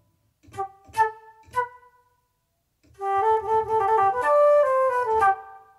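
SWAM Alto Flute virtual instrument played from a MIDI keyboard and sounding now that its expression controller is received. Three short notes come in the first couple of seconds; after a pause, a flowing phrase of several notes follows.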